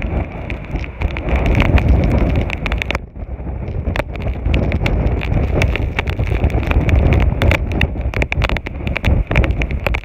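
Very strong, gusty wind buffeting the microphone: a heavy rumble with many crackles and clicks, easing for a moment about three seconds in before picking up again. It is the wind right beside a tornado that may be touching down again.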